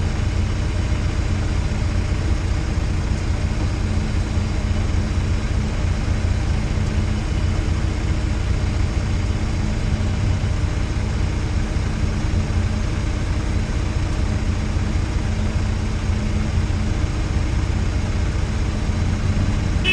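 Peugeot 306 GTi-6's four-cylinder petrol engine idling steadily while the car sits stationary, a low, even hum with no revving.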